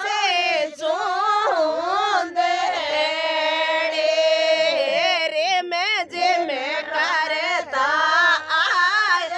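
A woman singing a wedding folk song (vivah geet) without instruments, in ornamented, bending phrases with one long held note a few seconds in.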